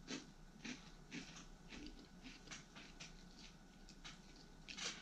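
Faint crunching and chewing of Funyuns onion rings: a scatter of soft, irregular crackles.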